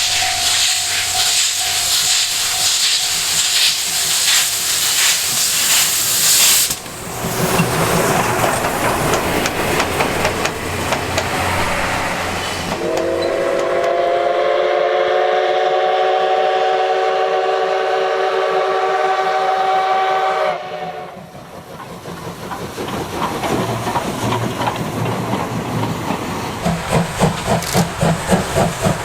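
C57 steam locomotive working: steam hissing and the clatter of the passing train, then a long chime-whistle blast of several tones held for about eight seconds. After the whistle come the exhaust beats (draft) of the engine getting under way, growing into a steady, even chuffing near the end.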